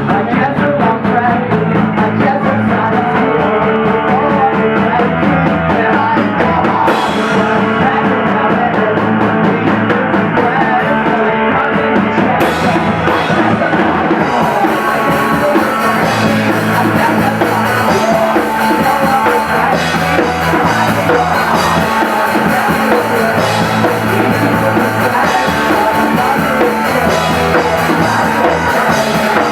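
Live rock band playing loudly: drum kit, guitars and singing.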